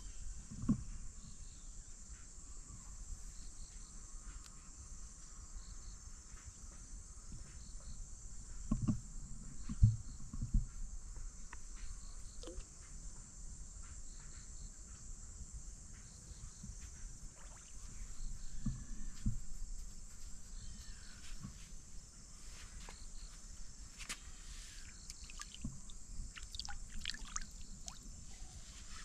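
Quiet riverbank outdoor ambience with a steady high hiss, a few low thumps around ten seconds in, and a scatter of short high chirps in the last few seconds.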